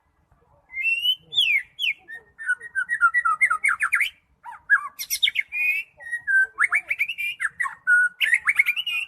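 White-rumped shama (murai batu, Medan type) singing: a long, varied song of clear whistles, rapid trills and steep sweeping notes, starting about a second in.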